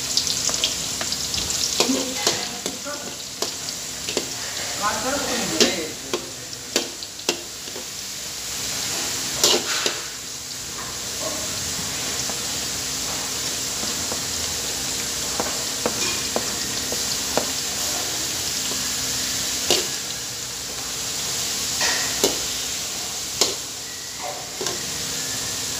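Chopped garlic and sliced onions sizzling in hot oil in an aluminium wok: a steady frying hiss, with sharp clacks and knocks now and then as a plastic chopping board and a metal ladle strike the wok while the food is scraped in and stirred.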